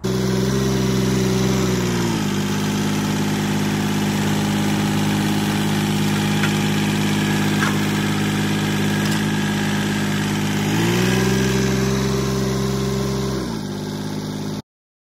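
Kioti CK3510SE tractor's diesel engine running: it drops from a faster speed to a lower one about two seconds in, speeds up again around eleven seconds, and settles back down just before the sound cuts off.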